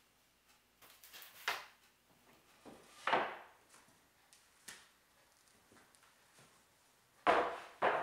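Wooden boards being handled and set down: a few knocks and scrapes of board against board and the bench, the loudest two knocks close together near the end.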